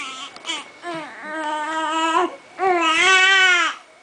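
Infant crying in a bassinet: short fussy whimpers, then two drawn-out cries of about a second each, the second louder.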